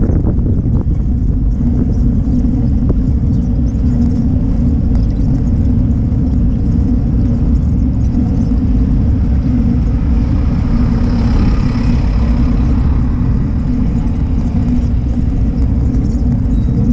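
Steady low rumble of wind buffeting a riding cyclist's camera microphone, with a passing bus's noise swelling briefly about two-thirds of the way in.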